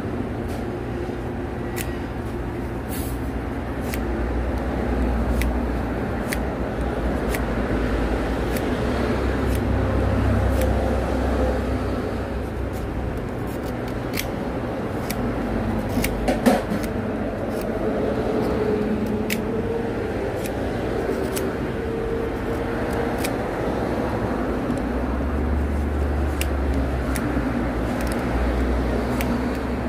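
Knife whittling a wooden fishing-float body by hand: small sharp shaving clicks scattered throughout, one louder click about halfway through, over a steady low rumble.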